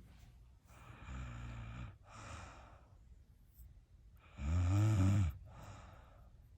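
A sleeping person snoring: two snores, each followed by a softer breath, the second snore about four and a half seconds in and clearly the louder.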